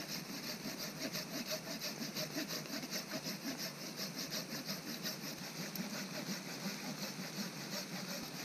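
Hand saw cutting through a wet branch in steady, rhythmic back-and-forth strokes.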